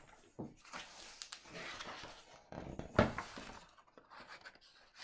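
Pages of a hardcover picture book being turned and handled, paper rustling and sliding, with a sharper flap of a page about three seconds in.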